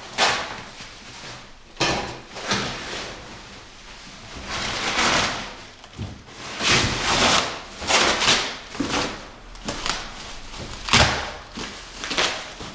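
Cardboard packaging and plastic bubble wrap being pulled, torn and crumpled by hand while a large boxed item is unwrapped: uneven rustling and crinkling in spells of a second or two, the loudest near the end.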